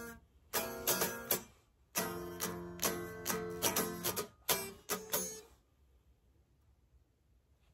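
Electric guitar strumming chords in short, choppy phrases. It stops for about two seconds near the end.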